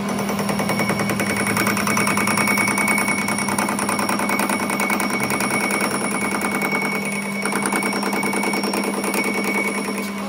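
Metal lathe turning a large steel disc, the cutting tool chattering against the spinning face in a rapid, even rattle over the machine's steady hum and a high whine. The rattle briefly eases about seven seconds in.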